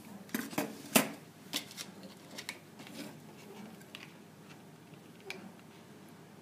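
Hands handling a WLtoys V222 quadcopter's plastic frame and battery plug: a run of sharp plastic clicks and taps, the loudest about a second in, thinning out to a few scattered clicks.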